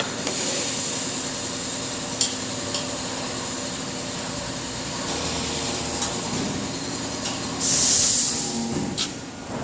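Welding of a bollard base: a steady hiss with a machine hum under it, a sharp click about two seconds in, and a louder burst of hiss near the end.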